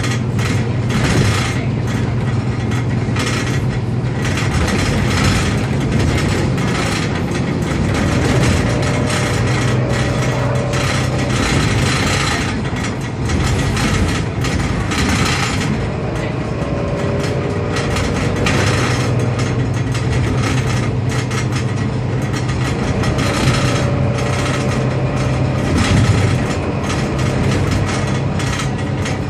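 Inside a moving Mercedes-Benz Citaro city bus: constant clattering rattle from the worn bus's interior over the steady drone of its engine. The engine drone drops away for a few seconds in the middle, then comes back.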